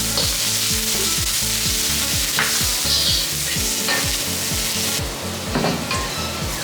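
Chopped garlic and red onion sizzling in hot oil in a wok, a steady hiss, with a few short scrapes as the wok is stirred.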